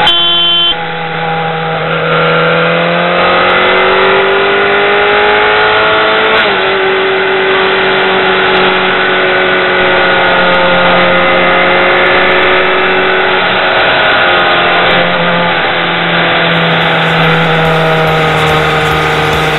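BMW K1200R's inline-four engine running under way, heard from the rider's helmet. Its pitch climbs for the first few seconds, then drops sharply about six seconds in, as at an upshift, and holds fairly steady after that with small rises and falls.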